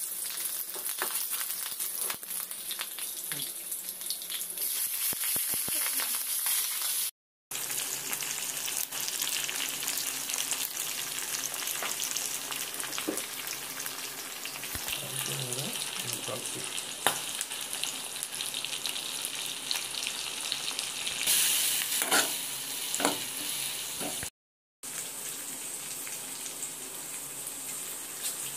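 Hot oil sizzling steadily in an aluminium kadai as potato, green chillies and garlic fry, with a steel spoon clinking and scraping against the pan as the food is stirred. The sound cuts out briefly twice.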